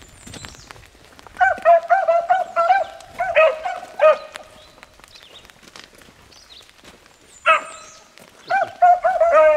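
Beagles giving tongue on a rabbit's track: runs of short, quick bays in several bursts with quiet gaps between, picking up again near the end.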